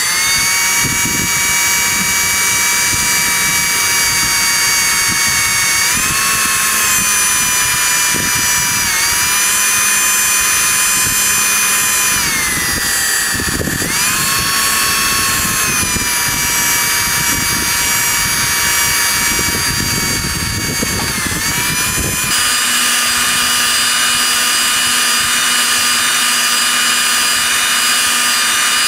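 Electric power drill running at high speed while boring into a microwave oven's door, its whine sagging in pitch several times as the bit loads up, over a rough scraping and grinding. About three-quarters of the way through the grinding stops and the drill runs on in a steady whine.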